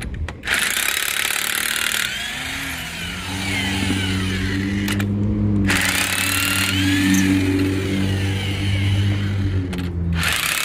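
Electric impact wrench hammering on the wheel's lug nuts in three bursts: about half a second in, about six seconds in, and near the end. Between the bursts its motor hums steadily.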